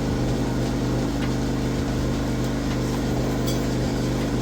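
A steady low mechanical hum, even in level, with a few faint ticks.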